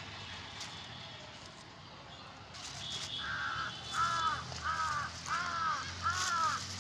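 A crow cawing: a run of about six harsh caws, one every half-second or so, starting about three seconds in.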